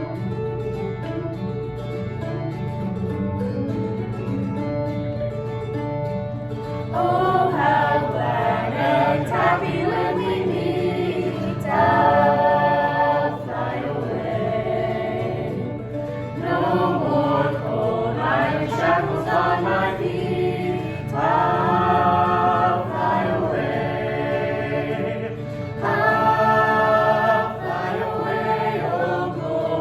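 Gospel music: acoustic guitar accompaniment, with voices singing in several phrases from about seven seconds in.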